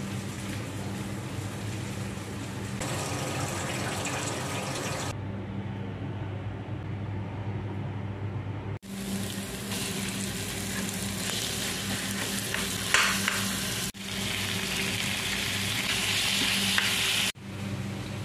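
Food frying in oil in a pan, a steady sizzling hiss over a constant low hum. It breaks off abruptly three times, and the hiss grows stronger near the end.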